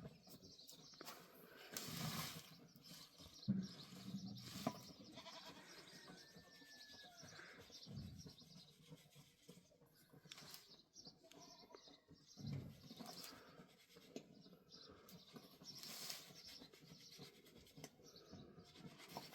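Goats bleating faintly now and then, with scattered light knocks and clicks.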